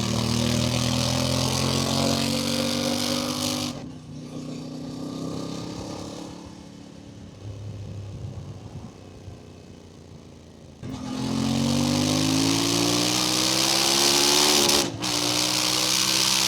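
Voge DS800X Rally parallel-twin engine through its standard exhaust, accelerating hard with rising pitch, then backing off for several seconds of quieter off-throttle running. It then pulls hard again with rising pitch. A sudden brief cut in power near the end is put down by the rider to the traction control intervening on a slippery road.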